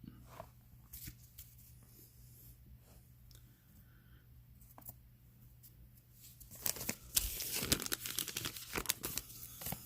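Faint handling of trading cards, then from about six and a half seconds in a 2020 Topps Gypsy Queen hobby pack's wrapper being torn open and crinkled, loud and crackling.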